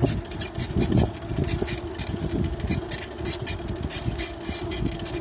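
A motor vehicle running with a steady low rumble and a string of irregular clunks, the loudest about a second in.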